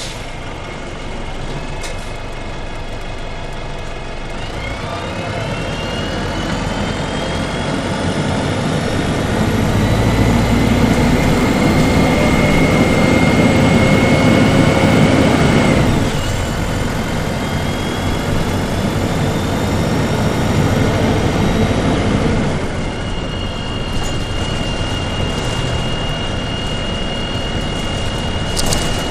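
Gillig Phantom transit bus with a Detroit Diesel Series 50 turbodiesel and three-speed Voith automatic, heard from on board as it accelerates. Whines rise in pitch and the engine grows louder from about five seconds in, then pitch and loudness drop suddenly about sixteen seconds in as the transmission shifts. The bus comes off the power a little after twenty-two seconds in, leaving a steady whine.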